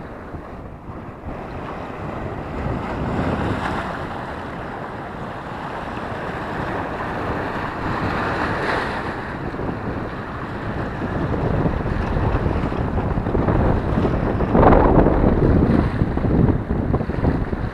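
Wind buffeting a GoPro's microphone over lapping and splashing water, with louder gusts about halfway through and again near the end.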